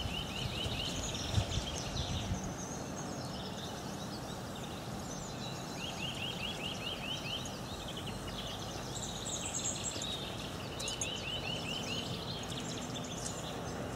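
Several songbirds singing over a steady background hiss. One bird repeats a short phrase of rapid, evenly spaced notes three times, and others add scattered high calls.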